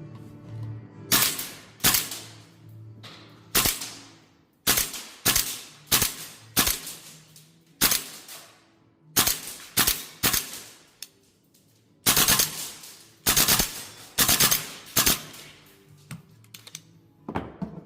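VFC AR-15 gas-blowback airsoft rifle firing: sharp cracks, some as single shots and some as short rapid bursts of two to four, with the busiest burst about twelve seconds in.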